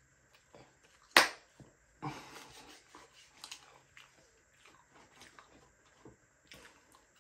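A sharp knock about a second in, then a stretch of paper crinkling and scattered small clicks and rustles: fast-food paper packaging being handled on a table.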